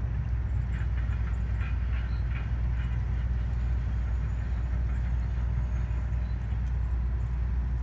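Tugboat diesel engine running with a steady low rumble as it works a barge, with a short run of faint, rapid higher clicks about one to three seconds in.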